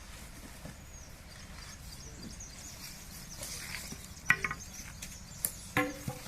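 Faint outdoor background with small birds chirping, broken by a few short, sharp knocks or calls about four and six seconds in.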